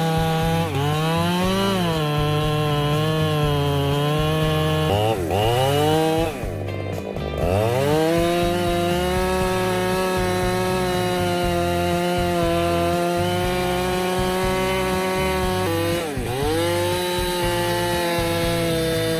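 Two-stroke chainsaw running at high revs while cutting wood. Its pitch drops several times as the chain bogs down in the cut and then picks back up, with one deep drop about six to seven seconds in.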